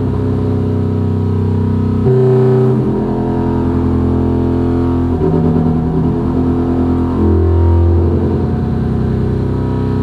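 Waldorf Microwave XT synthesizer playing sustained low chords, the chord changing to a new one about two, five and seven seconds in.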